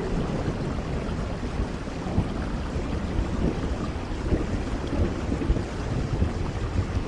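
Rain falling steadily, a dense even hiss with a low rumble underneath.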